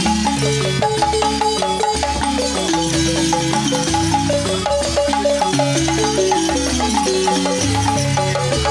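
Several gourd-resonated wooden balafons played together with mallets, in fast repeated runs of descending notes.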